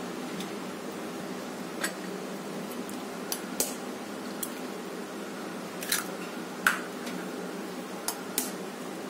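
Eggs being cracked open with the edge of a knife: several sharp taps of the blade on the shell, often two close together, a second or two apart.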